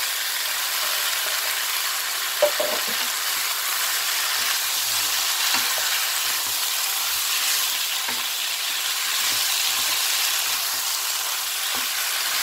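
Gochujang-marinated pork and vegetables sizzling in a frying pan over high heat as a wooden spatula stirs and tosses them, with a steady hiss, small scraping clicks, and one sharper knock about two and a half seconds in.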